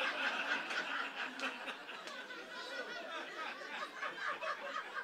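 Audience laughing, the laughter loudest at first and tapering off after a couple of seconds.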